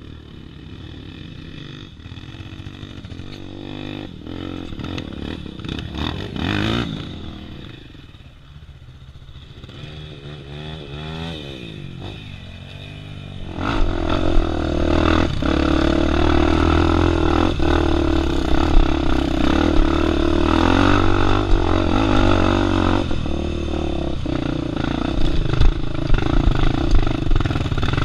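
Dirt bike engine running on a trail ride, fairly low for the first half with a couple of short revs rising and falling, then about halfway through it gets clearly louder and stays strong and steady as the bike is ridden under load.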